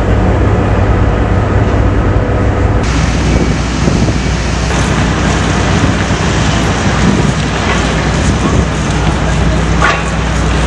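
A motor running steadily with loud rushing wind noise over it, changing to a slightly different steady hum after an edit about three seconds in.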